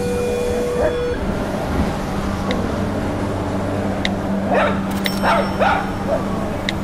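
A loud, dense wash of mixed background noise with a steady hum and a steady tone that stops about a second in. Scattered sharp clicks and several short, high yelping cries follow between about four and six seconds in.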